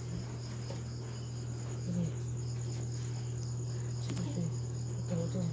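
Crickets chirping in a steady, pulsing high trill over a continuous low hum, with a few faint short squeaks.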